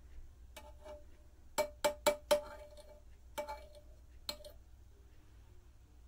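Metal batik tjanting tool clinking against the pot of molten beeswax: a couple of light taps, then a quick run of four sharper clinks about a second and a half in, then three more, each with a short ringing tone.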